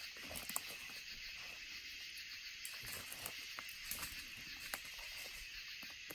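Steady chorus of night insects such as crickets, with scattered light crackles and snaps of footsteps in leaf litter.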